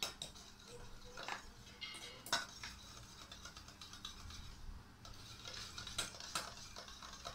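A spoon stirring sindoor powder into water in a cup: a run of sharp clinks against the cup and a scraping that grows busier in the second half.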